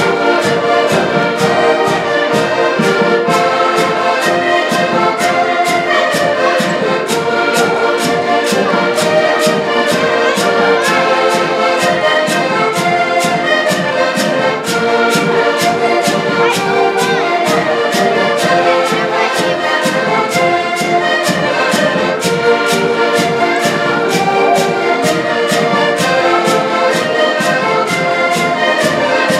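An ensemble of diatonic button accordions playing a lively tune together, sustained reedy chords over a steady, even beat.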